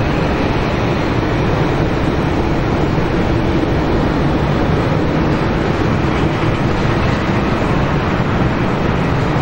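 Steady, unbroken roar of jet aircraft engines running.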